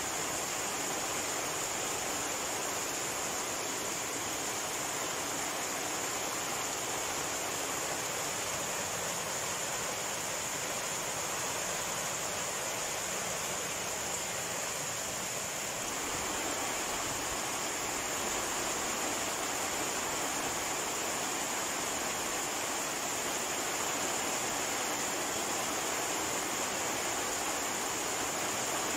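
Steady rain falling, a continuous even hiss with a high-pitched band running through it, growing slightly louder and fuller about halfway through.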